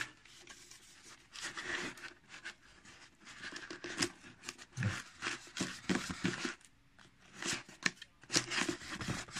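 Cardboard shipping box being handled: flaps rustling and scraping, with irregular short knocks and crinkles.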